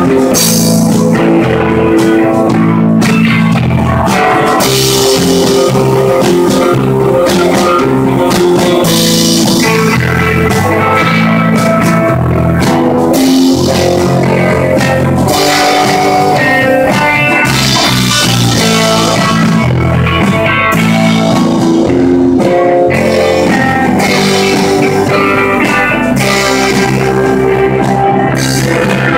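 A live rock band plays loud and steady, with electric guitars, bass guitar and a drum kit.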